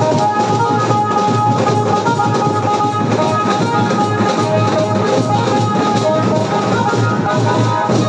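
Loud music with a drum beat blaring from a rig of aluminium horn loudspeakers on a procession sound system.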